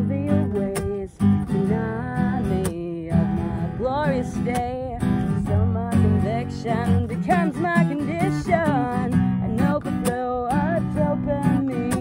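Song music: an acoustic guitar strumming chords, with a melody line above it that bends and slides in pitch.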